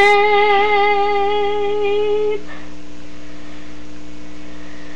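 A single high note held steady with a slight waver, which stops about two and a half seconds in. After it only a faint, steady low electrical hum remains.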